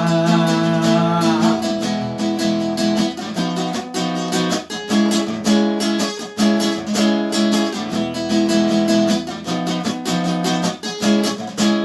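Acoustic guitar strummed in a steady rhythm, playing chords with no singing over it.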